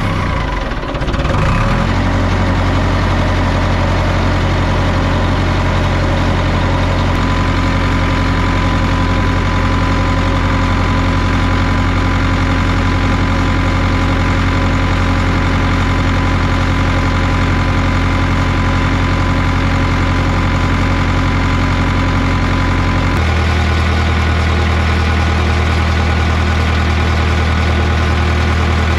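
Caterpillar 3304 four-cylinder diesel of a 1990 Cat D3C bulldozer, just started, settling within the first couple of seconds into a steady idle. About 23 seconds in, the low engine note changes abruptly.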